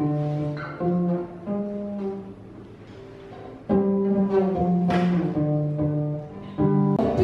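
Amplified acoustic guitar playing a slow instrumental passage without singing: a run of held, low notes, with stronger new notes struck about halfway through and again near the end.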